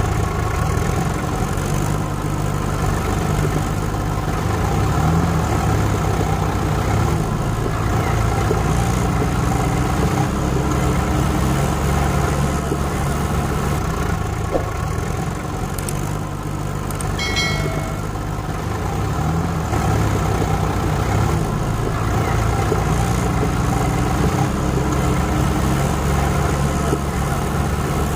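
Tractor engine running steadily at a low, even speed. About seventeen seconds in there is a short high-pitched tone.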